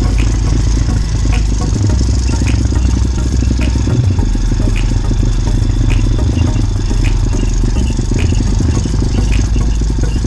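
Small motorbike engine running steadily while riding over rough ground, with a deep rumble and rattling, and a faint tick about once a second.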